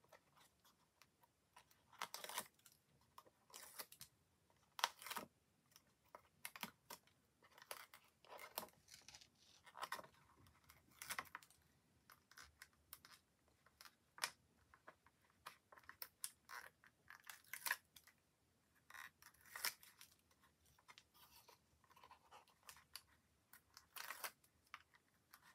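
Release papers being picked loose with fingernails and peeled off the sticky double-sided foam pads on a card window frame: quiet, irregular short peels and scratches, coming about once a second.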